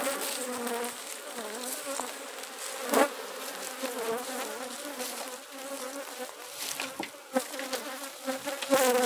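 Honeybees buzzing in flight close around the hives, their buzz wavering in pitch as individual bees pass near. A few sharp clicks cut through, the loudest about three seconds in.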